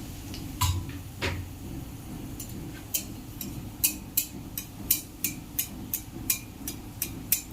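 Two knocks, then a steady run of sharp metallic clicks about three a second: a metal spatula striking a cooking pan as food is stirred.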